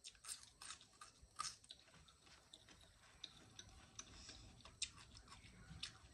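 Faint chewing with scattered wet mouth clicks and lip smacks, the sharpest about a second and a half in.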